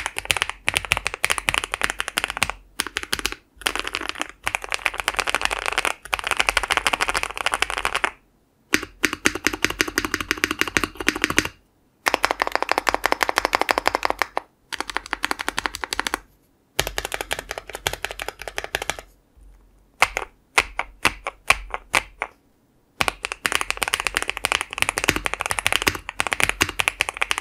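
Typing on an Akko Mod008 65% custom mechanical keyboard with lubed Akko CS Silver linear switches, a polycarbonate plate and Cherry-profile keycaps. Fast runs of keystroke clacks come in spells of a few seconds with short pauses between them, and there are some slower, separate key presses about two-thirds of the way in.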